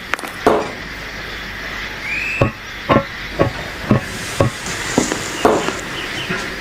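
Steam locomotive exhaust chuffing at an even beat of about two chuffs a second over a steady hiss of steam.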